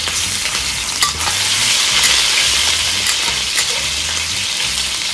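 Minced meat sizzling and crackling in hot oil and lard in an iron wok just after it goes in. The sizzle swells a second or so in, and the metal spatula clicks against the wok a couple of times.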